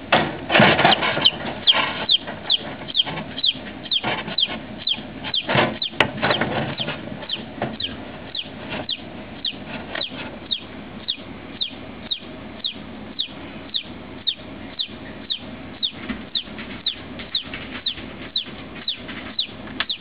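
Baby chicks peeping: a steady run of short, high peeps, each falling in pitch, about two to three a second, busier and louder in the first couple of seconds.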